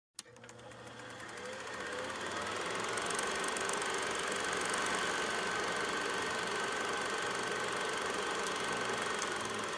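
Car engine and road noise heard from inside the moving car's cabin, a steady hum that fades in over the first couple of seconds and fades out near the end.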